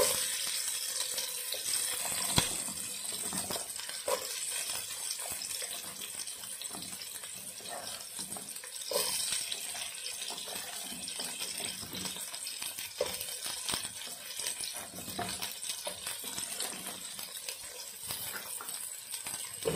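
Freshly added diced red onions frying in melted butter in a pan: a steady sizzling hiss with occasional small pops, the start of sautéing the onions.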